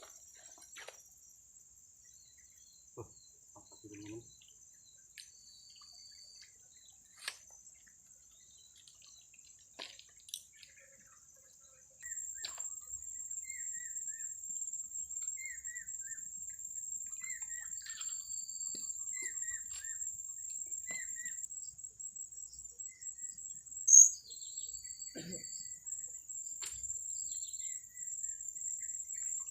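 Insects trilling in one steady high-pitched drone that grows louder about twelve seconds in, with birds chirping in short repeated notes and one sharp, loud high chirp about 24 seconds in.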